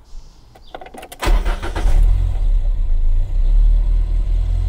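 Renault 9's 1397 cc four-cylinder petrol engine being started: a brief burst of cranking about a second in, then the engine catches and idles steadily.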